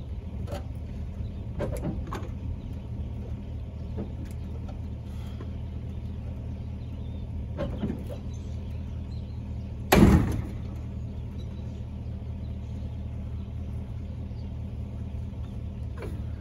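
A vehicle engine idles with a steady low hum under scattered metal clunks. About ten seconds in there is one loud bang, as the tail-heavy pickup-bed trailer tips forward and its tongue comes down.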